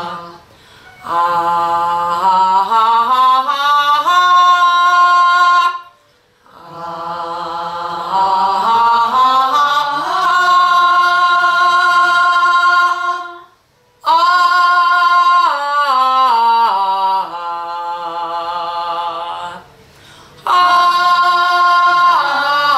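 A small group of pansori students, mostly women, singing unaccompanied in unison on a long open vowel as a vocal warm-up exercise. They sing four long phrases whose pitch steps up and down, with short breaths between them; the last phrase is still going at the end.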